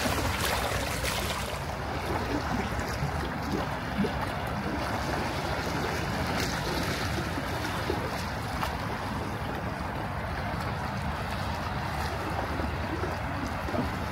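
Steady outdoor wash of noise over a low rumble, with wind on the microphone; a brighter hiss in the first second or two then settles.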